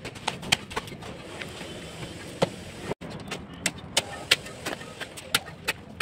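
Long-handled hoes scraping and chopping into a heap of gravel, sand and cement on a concrete floor, with irregular sharp clinks of stones, about two or three a second.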